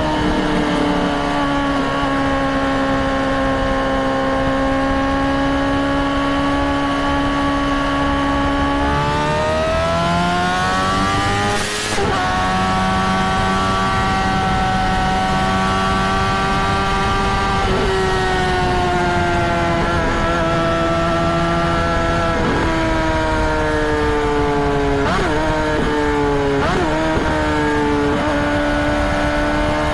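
Honda CBR600RR's inline-four engine running at high revs with a steady note. The pitch climbs about ten seconds in, breaks off briefly, then holds, and near the end it dips and rises quickly several times.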